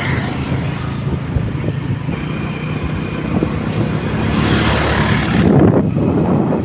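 A road vehicle driving, with a steady engine hum and road noise. A louder rushing swell comes about four and a half seconds in and fades by six seconds.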